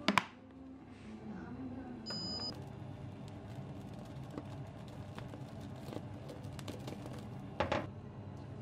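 Neuro Fuzzy rice cooker's button pressed with a sharp click, followed about two seconds later by the cooker's short electronic start beep. A brief knock comes near the end.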